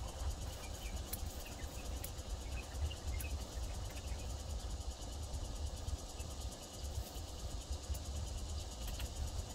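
Outdoor ambience: a steady low rumble, with faint high chirps in the first few seconds and a few light clicks.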